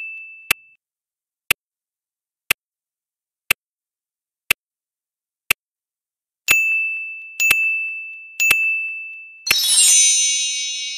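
Timer sound effects: a clock ticking once a second, six plain ticks, then three ticks each with a short ringing ding. About a second and a half before the end, a louder chime of several ringing tones sounds as the count reaches 60 and dies away slowly.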